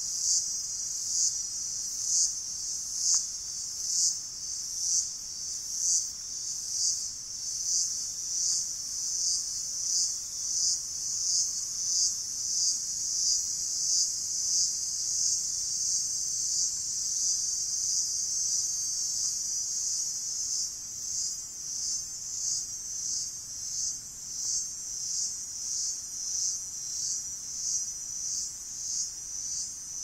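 Cicadas calling from large trees: a powerful, high-pitched buzz that swells and fades in regular pulses about one and a half times a second, quickening a little near the end.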